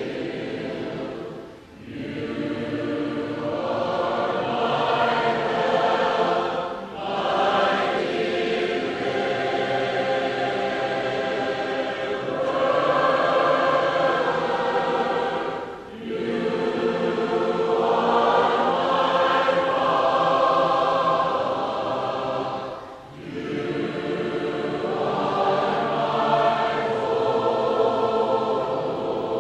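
Church congregation singing the invitation hymn together, in long sustained phrases separated by short pauses for breath.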